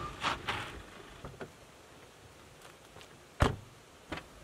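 A car pulling in, with a few short rushes of noise in the first half-second, then a car door shutting with a solid thud about three and a half seconds in, followed by a lighter knock.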